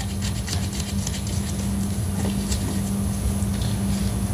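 A steady machine hum with a low rumble, overlaid by light irregular metallic ticking; the hum cuts off abruptly just after the end.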